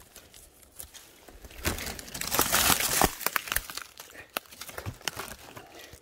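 Dry crinkling and crackling rustle of brittle material being crushed or pushed aside. It swells about two seconds in, is loudest for about a second, then breaks into scattered sharp snaps.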